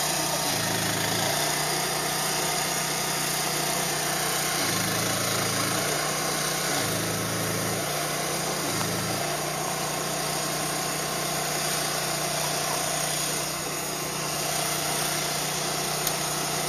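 An engine running steadily: a constant low hum under a broad hiss, unchanging throughout.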